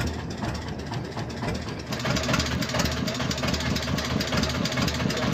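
Fishing boat's engine running steadily, growing louder about two seconds in with a fast, even beat.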